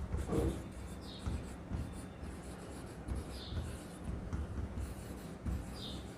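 Handwriting: a pen scratching across a surface in short strokes, with light rubbing and a few brief high squeaks.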